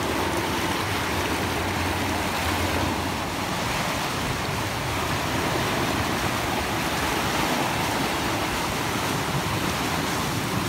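Small sea waves breaking and washing over rocks and concrete breakwater posts: a steady surf wash.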